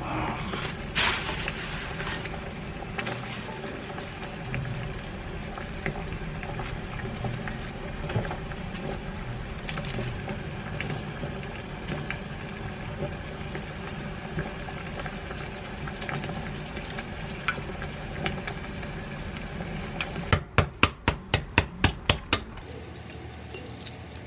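A wooden spoon stirring and clinking in a glass mug of sauce, then spooning it out, with small clicks over a steady low hum. Near the end comes a quick run of about nine sharp taps, roughly four a second.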